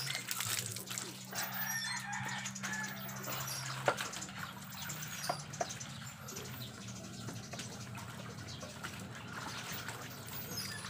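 A rooster crowing, over the splashing and sloshing of clothes being scrubbed and lifted by hand in a basin of soapy water, with a steady low hum underneath.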